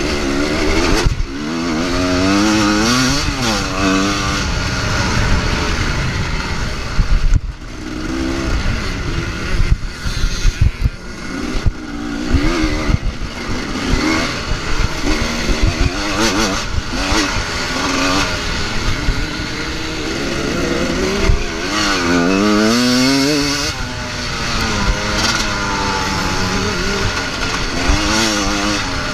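Motocross bike engine revving hard and dropping away again and again as the rider works the throttle through the gears, with knocks from the bike hitting bumps in the track.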